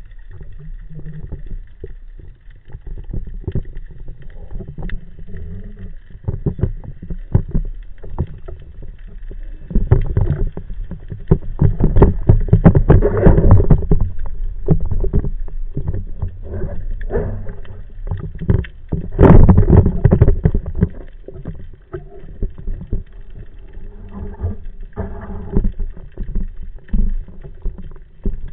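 Muffled underwater noise from a camera in a waterproof housing mounted on a speargun: water rushing over the housing with many sharp clicks and knocks. It swells louder in two stretches, around the middle and about two thirds of the way through.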